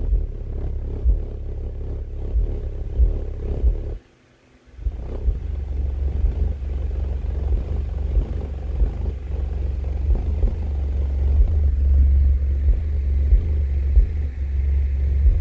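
Sundown Audio subwoofer playing loud, deep bass, its cone moving with very large excursion. The bass cuts out for about half a second around four seconds in, then comes back.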